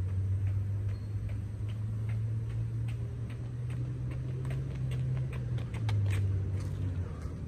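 Running footsteps of two joggers on pavement: an even patter of shoe strikes about three a second that grows louder as they come closer, over a steady low hum.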